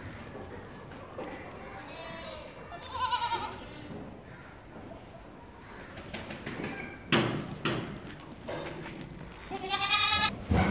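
Sojat goat kids bleating, a few quavering calls about two to three seconds in and another near the end. A sharp knock about seven seconds in is the loudest sound.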